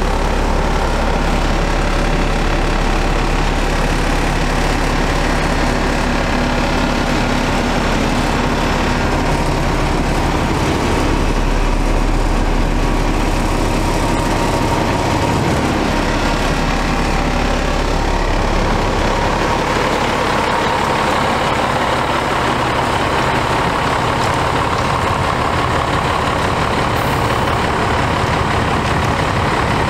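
The truck's Cummins ISM diesel engine idles steadily with a low, even rumble. It is heard first from inside the cab and then from outside, where the deepest rumble thins about two-thirds of the way through.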